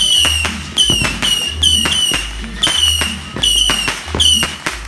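Background music with a steady beat: a repeating bass line under short, high notes that dip slightly in pitch, with sharp percussive hits in a regular rhythm.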